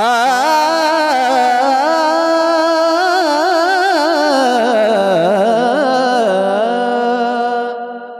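Kirtan singer's high voice holding one long, ornamented vocal phrase, the pitch wavering and turning constantly, sinking lower about five seconds in and fading near the end.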